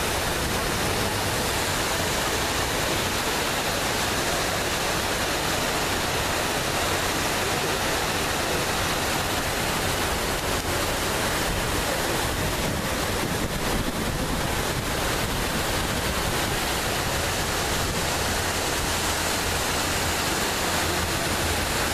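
Steady rush of water falling down the walls of the 9/11 Memorial reflecting pool, a large fountain waterfall.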